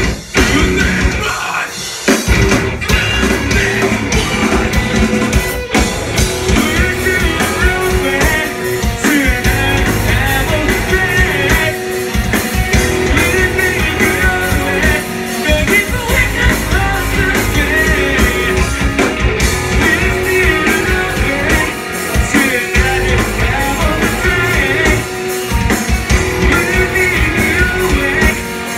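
Metalcore band playing live: distorted guitars, bass and drum kit with a vocalist singing into a microphone. The bass and drums drop out for a moment right at the start and the full band comes back in about two seconds in.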